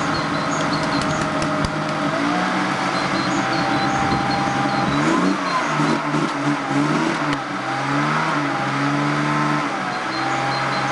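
A car's 2.5-litre engine running, at first steadily, then revved up and down repeatedly from about two seconds in. The car has stood unused for about three weeks.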